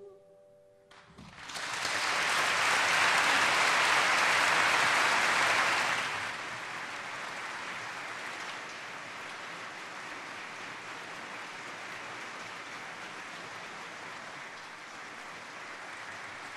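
The choir's last held chord dies away, then an audience breaks into applause about a second in. The clapping is loudest for about four seconds, then settles to steadier, quieter applause.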